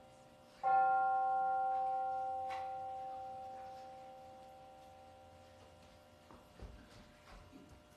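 A bell-like chime struck once, about a second in, ringing out and fading slowly over several seconds. A few soft footfalls follow near the end.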